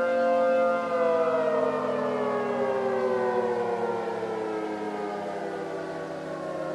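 Civil defense warning siren sounding a steady note, then winding down, its pitch falling slowly from about a second in.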